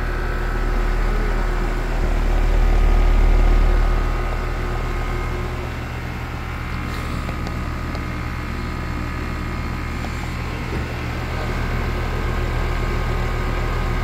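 Outdoor air-conditioner condensing unit running during refrigerant charging: a steady hum of compressor and condenser fan, with a low swell for a couple of seconds near the start.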